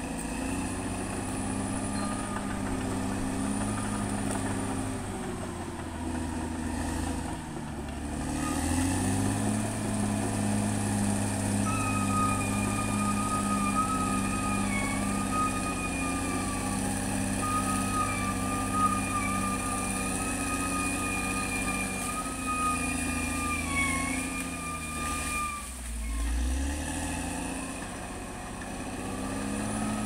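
Caterpillar D6R XL bulldozer's diesel engine running while the dozer works the slope, its pitch dropping and picking up again about eight seconds in and once more near the end. A thin, high, wavering whine sits over the engine through the middle stretch.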